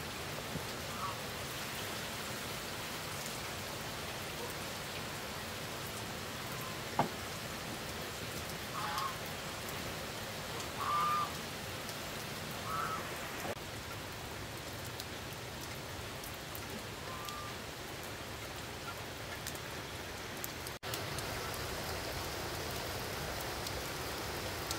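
Steady hiss of rain, with a few short high calls around the middle and a single sharp click about seven seconds in.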